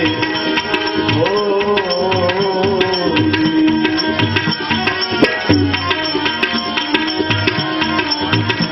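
Bhajan accompaniment without singing: tabla playing a steady rhythm under sustained melodic instrument tones.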